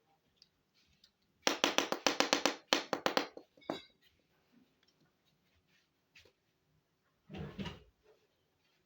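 Small hard plastic toy pieces being handled: a quick run of sharp clicks lasting about two seconds, then a single click, then a softer, duller rustle near the end.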